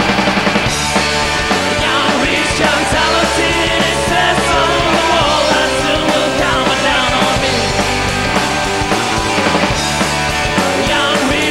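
Rock band playing live and loud: an instrumental stretch led by electric guitars, with no singing.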